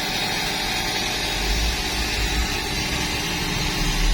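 Mini thermal fogging machine running and discharging disinfectant fog: a loud, steady rushing noise with a low rumble beneath it.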